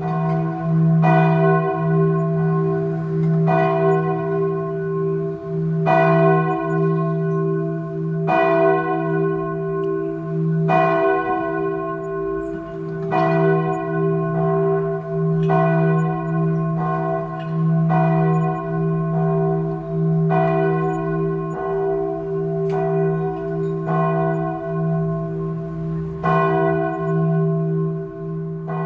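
A single large church bell tolling at an even pace, one stroke about every two and a half seconds, each strike ringing out over a steady low hum that sustains between strokes.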